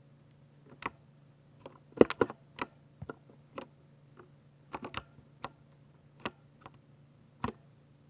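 Ducky 60% mechanical keyboard with silver switches being typed on: sharp, irregular keystrokes, a quick flurry of several keys about two seconds in, then single keys at roughly half-second to one-second gaps. A faint steady low hum lies underneath.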